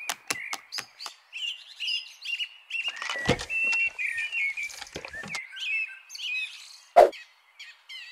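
Small birds chirping and twittering in quick trills, with a few short knocks, the loudest a sharp knock about seven seconds in.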